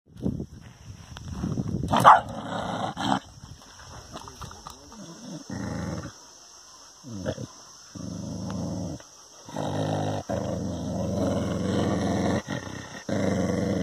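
A dog growling in repeated stretches that start and stop abruptly.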